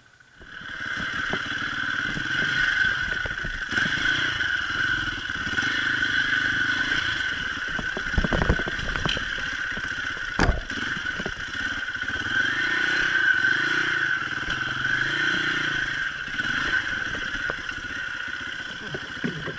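Enduro motorcycle engine revving up and down as the bike works over a rutted, rocky dirt track, heard through a helmet-mounted camera, with sharp knocks from the bike striking ruts or rocks about eight and ten seconds in.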